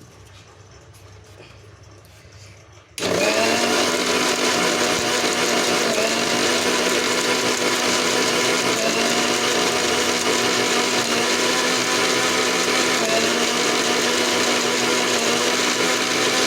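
Electric kitchen blender switched on about three seconds in and running steadily at speed, grinding cooked tomatoes, onions and roasted chana with water into a smooth chutney paste.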